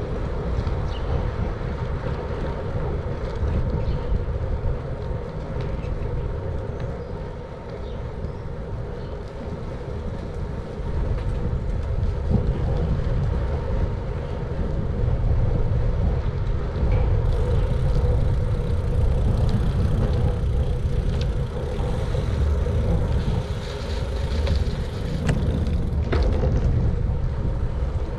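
Steady wind noise on an action camera's microphone, mixed with the tyres of a Surly Cross Check bicycle rolling over pavement while riding.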